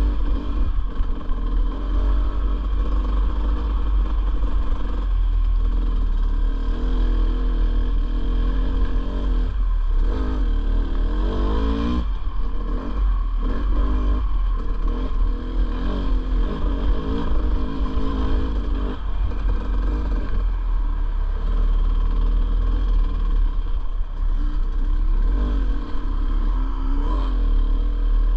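Dirt bike engine running and revving up and down as it is ridden along a rough trail, with wind rumbling on the microphone.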